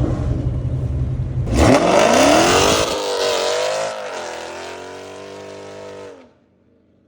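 Performance car exhaust running with a deep, pulsing note, then revving hard about a second and a half in. The note climbs, drops back, climbs again, then settles and fades, and the sound cuts off about six seconds in.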